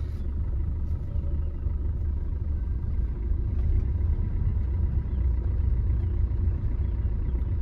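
Steady low rumble of a car's engine and tyres, heard from inside the cabin while it is being driven.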